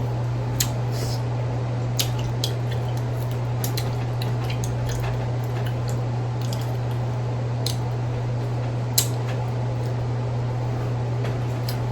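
Crawfish shells being cracked and peeled by hand while eating: scattered sharp clicks and crackles, the loudest about nine seconds in, over a steady low hum.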